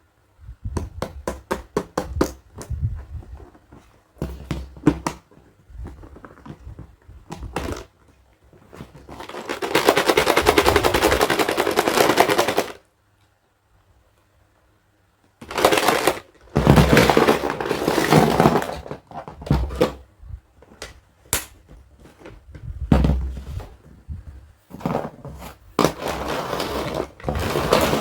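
Toy dentist kit pieces and packaging being handled during unboxing: a run of sharp clicks and taps, then long stretches of crinkling, crackling plastic packaging. There is a near-silent gap of about two and a half seconds in the middle.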